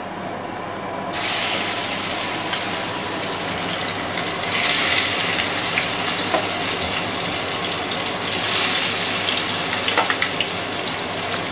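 Marinated chicken sizzling as it is spooned into hot oil and whole spices in a steel kadai. The sizzle comes in about a second in and grows louder a few seconds later, with a couple of light spoon clinks.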